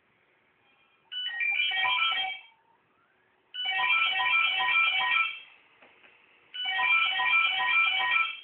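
Telephone ringing with a melodic, guitar-like ringtone: three identical bursts of a short tune, each lasting under two seconds, with short pauses between them.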